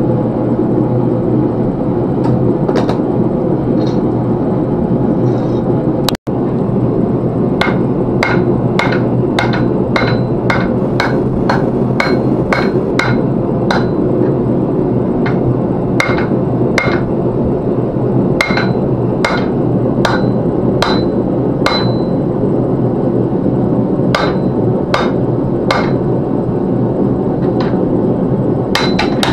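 Hand hammer striking a hot meteorite Damascus bar on the anvil. The blows come in runs of about two a second, each with a short ringing note, and grow frequent after the first several seconds. Beneath them is the steady rush of the forge blowing.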